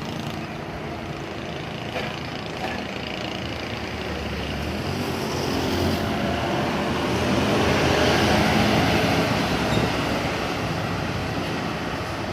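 A bus passing on the road. Its engine and tyre noise builds to a peak about eight seconds in, then fades.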